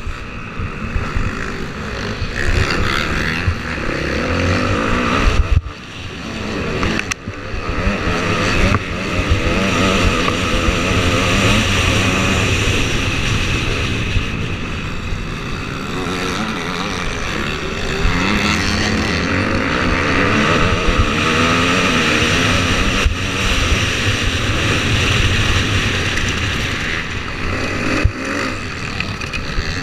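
Motocross bike engine heard from on board, revving up and down through the gears at racing speed. The engine note drops off briefly twice, about five and seven seconds in, as the throttle is closed, then climbs again.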